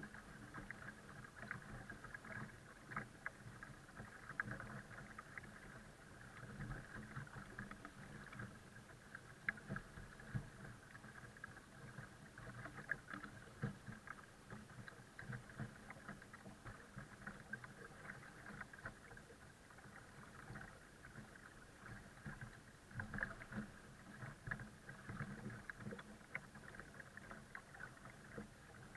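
Water lapping and splashing against the hull of a folding kayak as it is towed, with many small irregular splashes over a faint steady hum.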